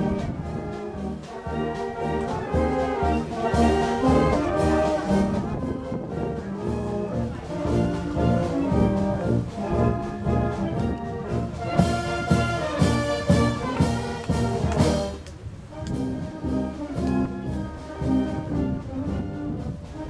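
Brass band playing, sousaphone carrying the bass under trumpets and trombones in sustained chords; the music dips briefly about fifteen seconds in, then carries on.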